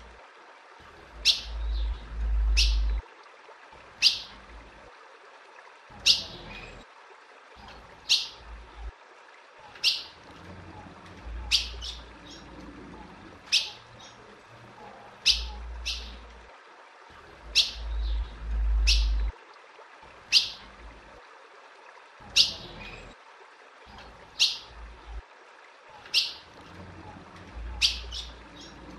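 Female ultramarine grosbeak (azulão) calling again and again: short, sharp, falling chirps, one every second or two. A low rumble comes and goes underneath.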